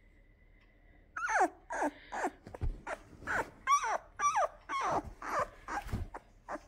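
Labrador puppy squealing loudly: a run of high, falling squeals about two a second, starting about a second in.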